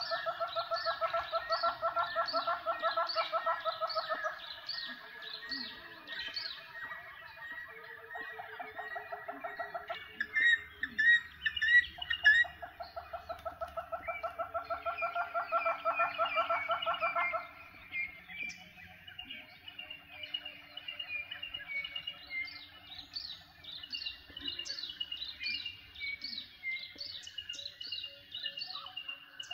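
Birds calling in the bush: one bird gives a loud, rapid chattering call that pulses about four or five times a second, at the start and again in the middle, while other birds chirp and trill higher up throughout.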